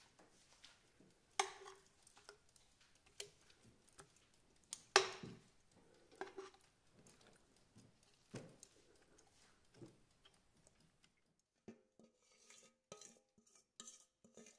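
Metal tongs clinking and scraping against a stainless steel pot while pieces of marinated pork are turned and lifted, about six separate knocks with a short ring, the loudest about five seconds in. Near the end, quiet, light plucked-and-tapped background music begins.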